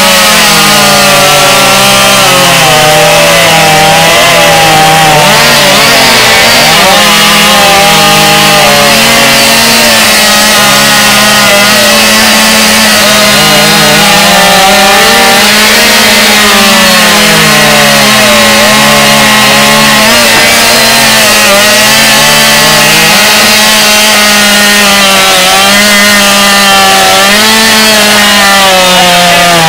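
Two-stroke chainsaw cutting through a log at full throttle, very loud. The engine pitch repeatedly sags as the chain bites in and climbs back as it clears, over a second steady engine tone.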